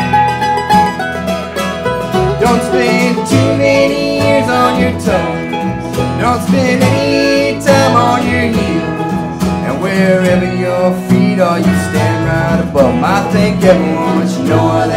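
Live country-folk band playing: strummed acoustic guitar, mandolin, upright bass and electric guitar.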